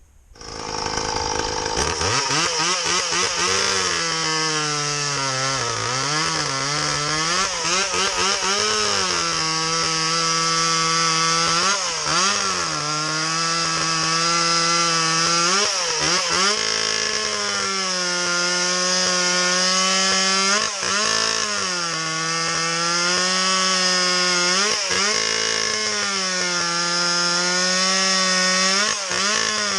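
Stihl MS170 two-stroke chainsaw, fitted with a homemade exhaust pipe and run without its air filter, running at high revs through test cuts in wood. Its engine speed sags and picks back up several times as the chain loads in the cut.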